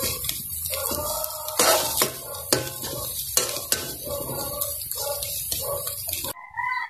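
Metal spoon scraping and clicking against a metal wok as a frying omelette is pressed and turned, with repeated scrapes and sharp taps. The sound cuts off suddenly near the end.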